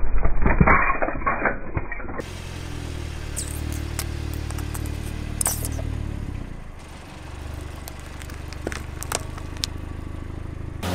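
Hard plastic puzzle cube cracking and crunching under a car tyre for the first two seconds, a dense run of snaps. Then a car engine idling with a low steady hum, and a few sharp plastic clicks near the end.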